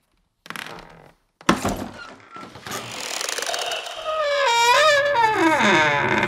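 A sudden knock about a second and a half in, then an old wooden door creaking open on its hinges: a long, wavering creak that slides down in pitch near the end.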